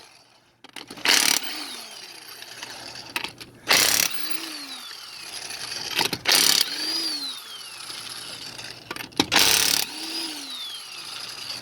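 Cordless power tool on a socket breaking wheel lug nuts loose: four short loud bursts a few seconds apart, each followed by the motor's whine winding down.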